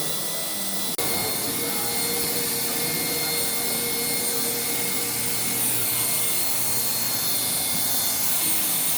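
A small motorised tool running steadily with a hiss and a high whine, cutting out for an instant about a second in and then carrying on.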